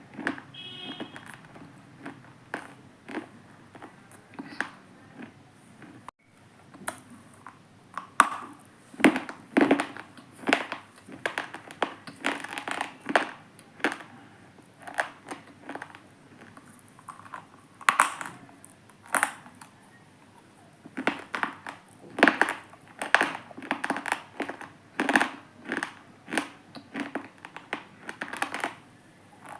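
Crumbly, irregularly shaped stone chunks being crushed: a run of separate sharp crunches, about one a second and in quicker clusters at times.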